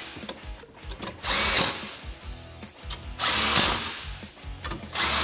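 Cordless power driver run in short bursts of about half a second, twice and again at the very end, with a high motor whine, spinning down the bolts that fasten a seat base onto seat risers.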